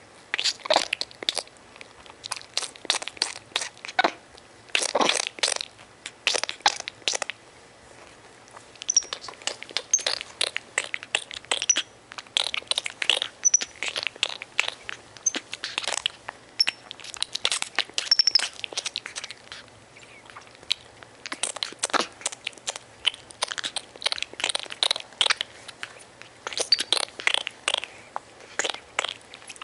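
A baby monkey mouthing and nibbling the denim right by the microphone: irregular crackling clicks and crunches in clusters, with a few short high-pitched peeps in the middle stretch and near the end.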